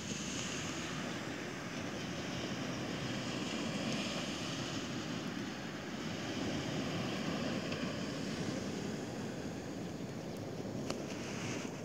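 Steady wash of low surf on a sand beach, with wind noise on the microphone.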